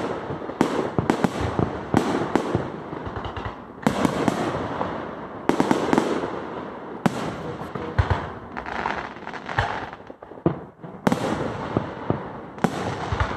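Aerial firework shells bursting in a rapid barrage: many sharp bangs close together over a dense noisy wash, easing briefly about ten seconds in before the bangs pick up again.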